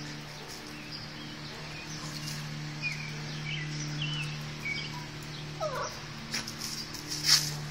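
Small dog whining in short, high, wavering squeaks and a rising whine as it hunts in a pile of dry leaves, with a sharp burst near the end, over a steady low hum.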